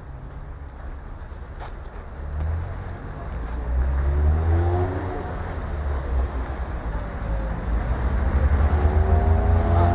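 Motor vehicle engine with a low rumble, speeding up twice with a rising whine, about four seconds in and again near the end.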